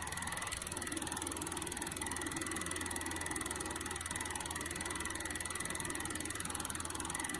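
Steady low hum and hiss with a faint, constant high-pitched whine, unchanging throughout.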